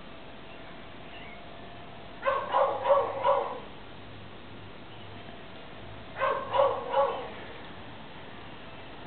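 Dog barking in two short runs: four barks about two seconds in, then three more about six seconds in.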